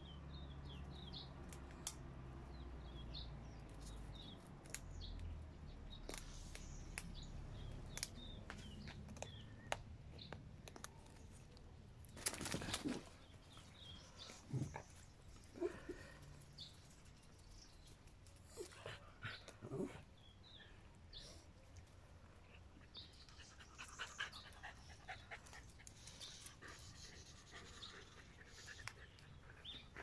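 Small dogs panting and sniffing close by, with a few short, louder sounds scattered through.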